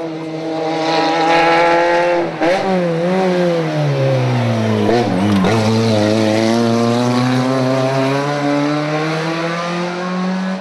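Rally car engine under load: the revs drop in steps on the downshifts between about two and five seconds in, with a few sharp cracks at the changes, then climb steadily as the car accelerates away.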